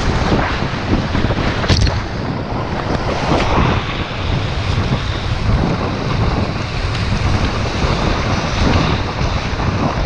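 Loud rushing of whitewater rapids around a packraft, with wind buffeting the microphone.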